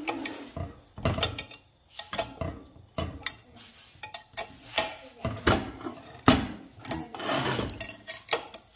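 A steel wrench clinking and knocking against hydraulic fittings and a steel box as they are tightened, in irregular sharp metallic clinks with short pauses between them.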